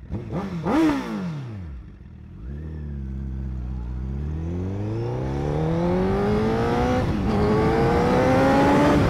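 2008 Honda CBR1000RR's inline-four engine. It gives a quick rev that rises and falls away, then revs climb steadily as the bike pulls away. About seven seconds in the revs drop with an upshift into second gear, then climb again.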